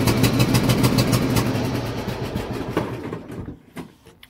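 Castle Garden ride-on mower's engine cranking on its electric starter, a rapid steady ticking, then slowing and dying away about three seconds in, followed by a couple of single clicks: the engine fails to keep running.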